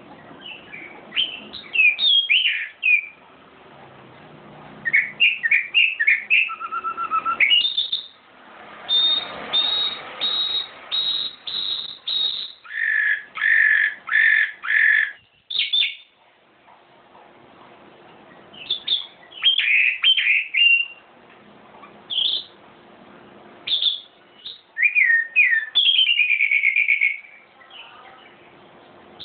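Songbird singing in bursts of whistled notes and quick chirps, with short pauses between phrases. One phrase is a run of repeated sharp falling whistles, followed by a stretch of fuller repeated notes.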